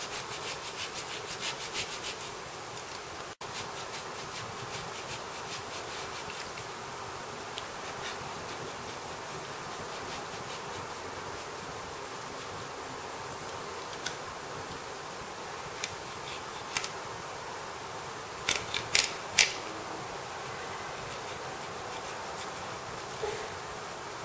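Potato being grated on a handheld stainless-steel grater, with quick rasping strokes for the first couple of seconds. After that a steady faint hum remains, and a few sharp clicks come about three-quarters of the way through.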